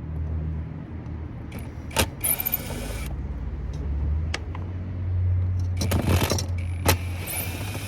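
Metal scrap parts being handled: short rattling and scraping spells and two sharp clicks, over a low steady hum.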